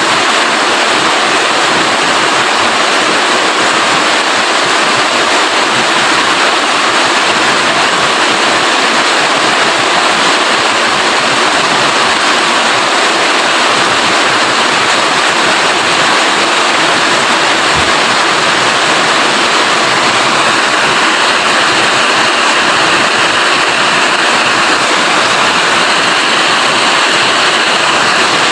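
Steady heavy rain, a constant dense hiss that holds even throughout.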